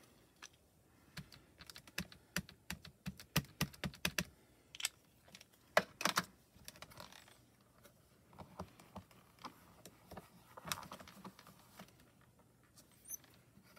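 Quick small plastic taps and clicks of an Altenew mini ink cube being dabbed onto clear stamps, densest in the first few seconds. A louder click comes about six seconds in as the cube is set back in its tin, followed by softer clicks and handling rustles.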